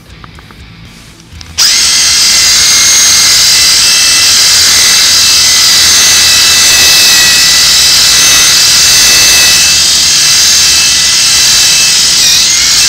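A motor running steadily at a loud, constant high whine with a rushing hiss. It starts abruptly about a second and a half in, after faint music.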